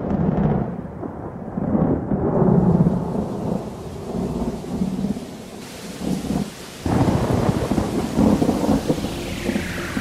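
Thunder rumbling over steady rain, with heavy rolls about two seconds in and a sudden louder roll about seven seconds in.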